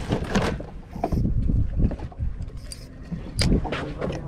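Low rumble of wind and water on a small fishing boat at sea, with a few sharp knocks on the boat, the sharpest about three and a half seconds in.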